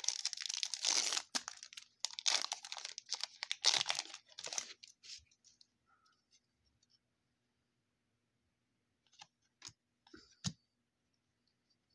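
Trading card pack wrapper being torn open and crinkled, in several rips over the first five seconds, followed by a few light clicks near the end.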